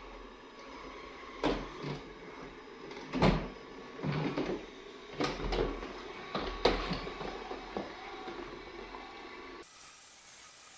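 A series of irregular mechanical knocks and clunks, about six over several seconds, over a low steady hum.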